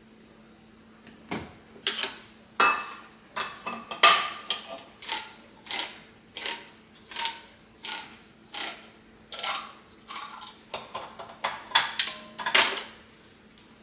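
Metal clinking and scraping on a tin can, about one or two sharp clinks a second, each with a short ring: a metal utensil or opener working an opened can of enchilada sauce over the pot.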